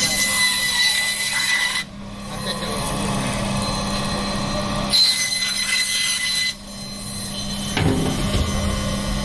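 Band saw running with a steady hum while its blade cuts through a large fish, flesh and bone rasping against the blade. The cutting comes in two stretches: one for about two seconds at the start, and another about five seconds in lasting a second and a half. Each ends abruptly, leaving the motor running.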